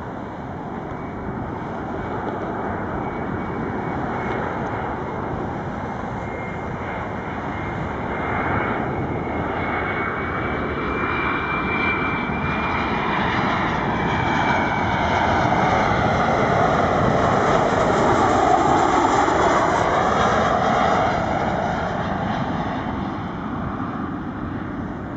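Boeing 737-300's CFM56 turbofan engines on landing approach: a jet rumble with a thin whine on top, growing louder as the airliner comes close, loudest about three quarters of the way through, then easing off as it passes toward the runway.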